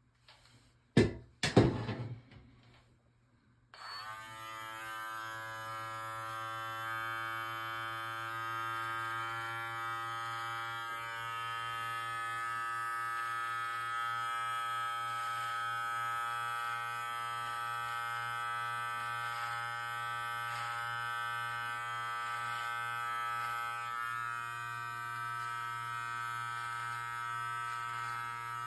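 Live Bearded MT-1 beard trimmer switched on about four seconds in and running with a steady buzz while it is worked through the beard. A couple of loud knocks come just before it starts.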